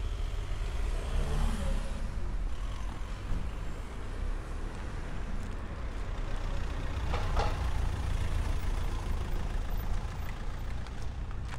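Street traffic: a motor vehicle's engine running with a steady low rumble, and a short burst of noise about seven seconds in.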